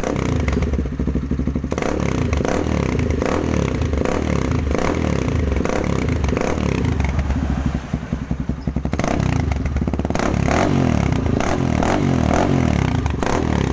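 Z200X motorcycle's exhaust, through a stock canister with a cut-down silencer, as the engine is revved up and down repeatedly; really loud, with a short drop in revs about eight seconds in.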